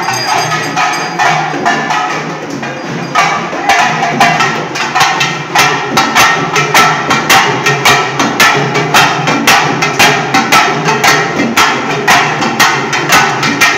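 A group of hand-held frame drums beaten with sticks in a fast, driving rhythm of sharp strokes. The drumming grows louder and more forceful about three and a half seconds in, settling into about three strong beats a second.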